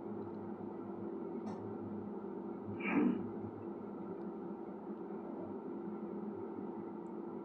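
Steady low hum of room and microphone noise between narration, with one brief soft sound about three seconds in.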